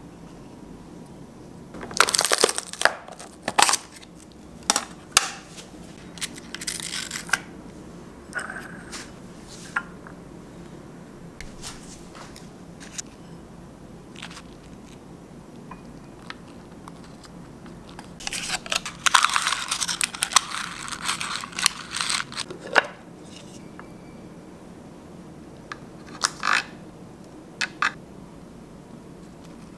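Food being packed into a bento box by hand and with chopsticks: two bursts of crinkling and crunching, one about two seconds in and a longer one about eighteen seconds in, with scattered light clicks in between and after.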